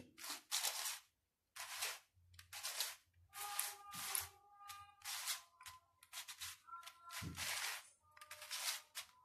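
Layers of a large plastic Mastermorphix twisty puzzle being turned by hand: about a dozen quick turns, one or two a second, each a short plastic rasping click. The puzzle turns smoothly and feels tight.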